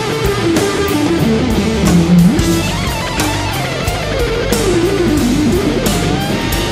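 Live instrumental hard rock: a distorted electric guitar lead bends and slides through long rising and falling pitch glides, over bass guitar and drums with a steady cymbal beat.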